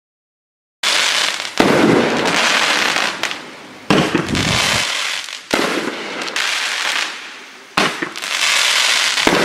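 Sunwing 1 Minute Absolute Pyro, a 20-shot 500 gram fireworks cake, firing about a second in. Five shots follow one another every one and a half to two seconds, each with a sharp launch bang and then about two seconds of dense crackling as the effect breaks.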